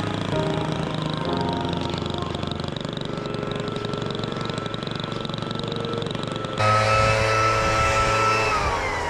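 Small lawn-equipment engine running at steady high speed. About two-thirds through it turns abruptly louder and higher, and near the end its pitch falls smoothly as it slows down.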